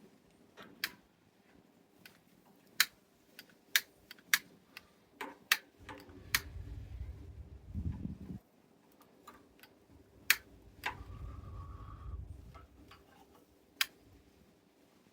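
Irregular sharp clicks and snaps while a dry-grass and kindling fire is being lit. Twice, for about two seconds each, gusts of wind buffet the microphone with a low rumble.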